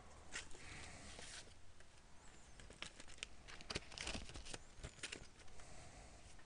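Faint scattered clicks and crackling rustles, clustered thickly in the middle, over quiet room noise.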